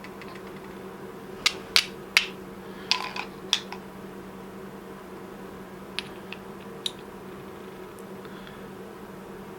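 Steel fire striker made from an old file, mounted on a Swiss Army knife, struck against a flint to throw sparks: about six sharp strikes in quick succession, then three fainter ones a few seconds later. A steady low hum runs underneath.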